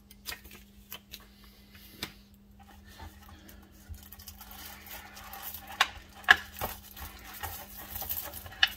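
A few light paper page flicks from a small booklet, then a thin plastic bag rustling and crinkling as it is pulled open around a webcam in a plastic tray. The crinkling grows denser from about three seconds in, with a few sharp crackles.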